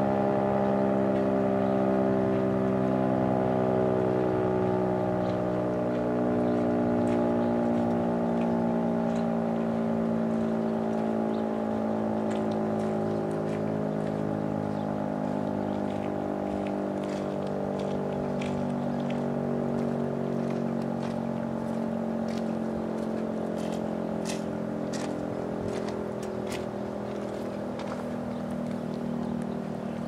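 Federal Signal STH-10A electromechanical outdoor warning siren sounding its Full Alert steady tone: one held, horn-like chord of several pitches that gradually grows quieter.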